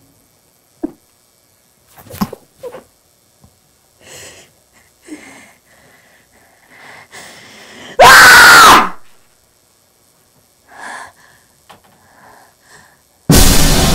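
A loud scream lasting about a second, eight seconds in, most likely from the woman bound with rope; faint, short scattered sounds come before it. Loud music starts just before the end.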